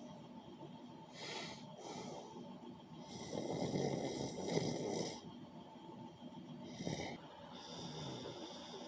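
A person snoring: a run of separate snoring breaths, with a longer one around the middle.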